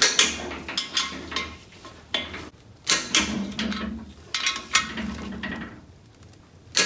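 Click-type torque wrench being pulled on the main bearing cap bolts of a small-block Chevy LT1 block, set to 80 ft-lb: ratcheting and sharp metallic clicks, several times, each click marking a bolt reaching its set torque.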